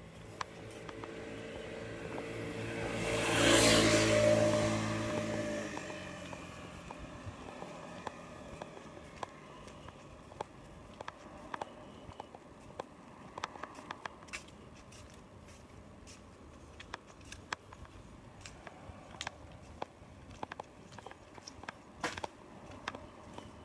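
A car passes, its engine and tyre noise swelling to a peak about four seconds in and fading away by about six seconds. Afterwards only faint scattered ticks and clicks remain.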